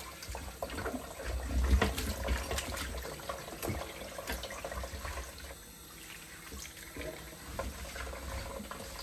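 Kitchen tap running, its water splashing onto a ribbed non-stick grill plate held under it in a sink.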